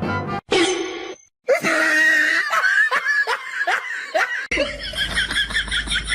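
A person laughing in rapid repeated bursts, after a short silent gap about a second in; an abrupt cut partway through brings in another stretch of quick, laugh-like pulses over a low hum.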